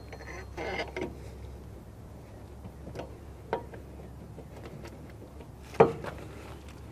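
Scattered metal clicks and scrapes of a semi truck wheel hub being handled and worked onto the axle spindle: a scuffing rustle about half a second in, a few light clicks, then one sharp clank near the end, the loudest sound.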